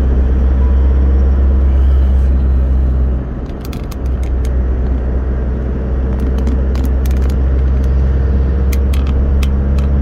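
A car driving at road speed, heard from inside the cabin: a steady low drone of engine and tyre noise that eases briefly about three seconds in. Scattered light clicks come through in the second half.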